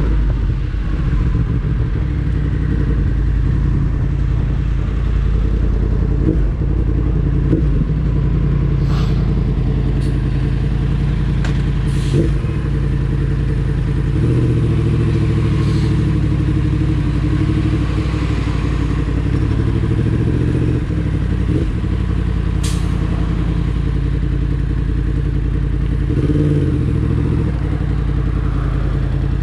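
Yamaha MT-10's crossplane inline-four engine running at low revs as the bike rolls slowly in traffic, the note rising and falling a little, with a few sharp clicks.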